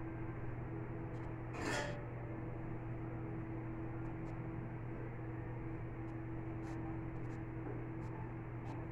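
A steady low hum, with a short clatter about two seconds in and a few faint clicks as a metal serving tray is handled and wiped with a cloth.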